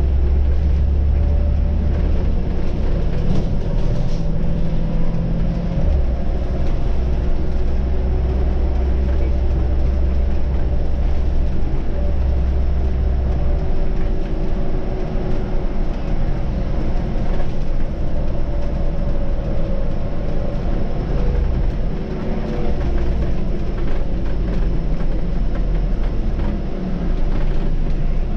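Scania city bus under way, heard from the driver's seat: a steady low engine and road rumble with faint tones that drift slightly up and down in pitch.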